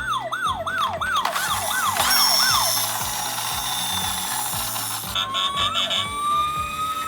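Toy ambulance's electronic siren sounding a rapid falling wail, about two and a half sweeps a second, for the first few seconds. A hissing noise follows, then a burst of rattling clicks, and near the end a slowly rising steady tone.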